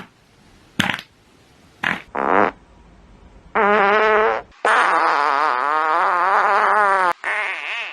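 Fart sound effects: three short blasts, then a rippling, wavering fart of about a second, and a long one of about two and a half seconds that wavers in pitch before trailing off.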